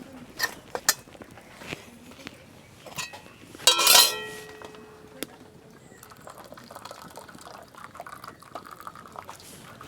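Metal cooking pot clanking as boiled taro leaves are tipped out to drain, with a loud ringing clang about four seconds in, followed by a softer pour of hot water.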